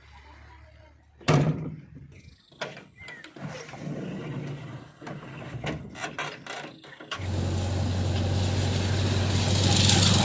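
Scattered mechanical knocks and clicks, with one loud knock about a second in. A diesel engine then comes in abruptly about seven seconds in and runs steadily.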